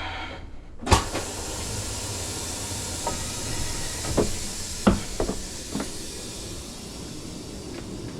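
A sharp click about a second in, then a steady hiss of compressed air with a few light knocks.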